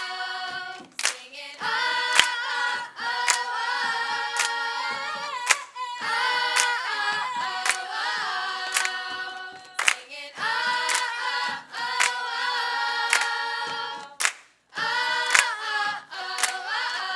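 Girls' choir singing a cappella in harmony, with hand claps about once a second keeping the beat. The singing breaks off briefly near the end, then picks up again.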